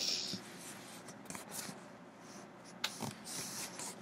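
Handling noise as someone shifts in bed: bedding and pajama fabric rustling and rubbing against the handheld device's microphone, with a few soft clicks.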